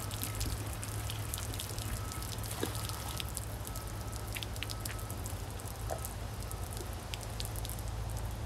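Water dripping in small irregular drops over a steady low hum, as spilled water runs off a wet tabletop.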